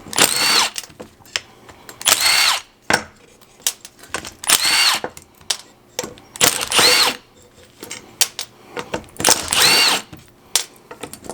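Cordless power driver spinning out the small bolts that hold RB-series ignition coils to their rail. There are five short bursts about two seconds apart, the motor whine rising and falling in each, with light clicks of handling between.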